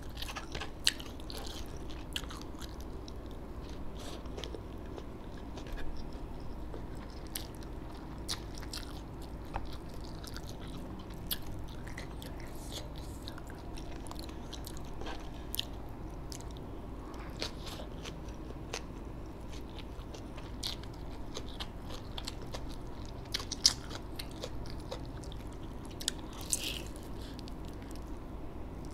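A person eating close to the microphone: chewing with scattered crisp crunching bites, most likely of deep-fried chicken, with a few sharper snaps about a second in and near the end, over a steady low hum.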